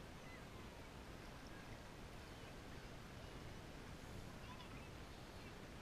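Faint steady sea ambience: shallow water lapping and sloshing against an inflatable kayak, with a few faint short high calls.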